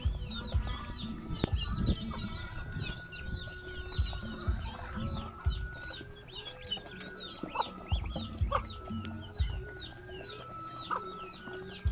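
A flock of ducks calling while they are fed: a dense, unbroken run of short high peeping calls, with scattered low thumps beneath.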